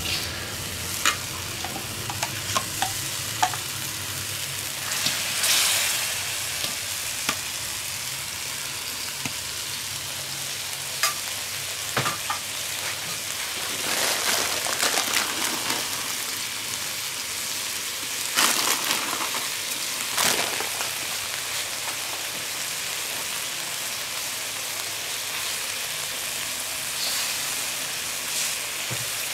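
Chicken and vegetable stir-fry sizzling steadily in a steel wok over a charcoal fire, swelling to a louder hiss a few times. Now and then the metal wok shovel clicks and scrapes against the pan.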